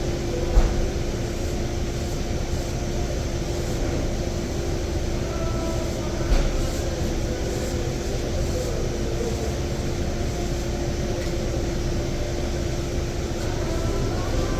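Steady mechanical running noise, a low rumble with a constant hum, broken by two short thumps, about half a second in and again about six seconds in.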